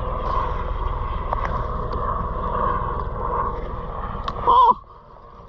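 Spinning reel being wound to retrieve a jig, a steady whirr over low wind rumble on the microphone. Near the end there is a short, louder wavering sound, after which everything drops much quieter.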